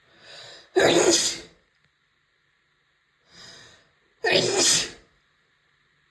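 A woman sneezing twice, about three seconds apart. Each loud sneeze is led in by a quieter breath in.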